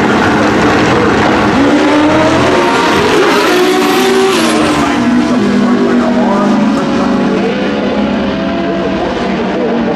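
Pro Xtreme drag racing motorcycles held at the start line, then launching about a second and a half in and accelerating hard down the strip. Their engine pitch climbs in several rising sweeps as they run through the gears, easing off a little near the end.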